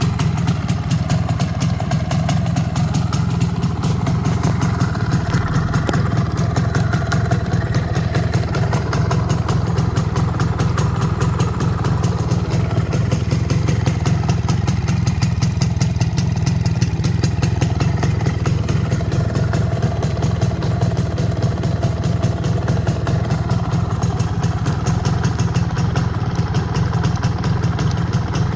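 The single-cylinder two-stroke engine of an MZ ETZ 150 motorcycle idling steadily at an even, rapid pulse. The engine has been freshly rebuilt with new bearings, a new crankshaft, a bored cylinder and a new piston.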